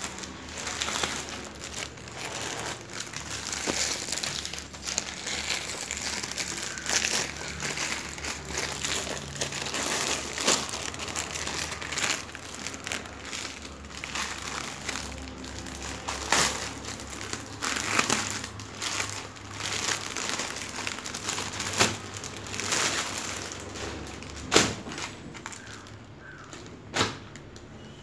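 Thin clear plastic packaging crinkling and rustling as it is handled and pulled open, with irregular sharp crackles throughout.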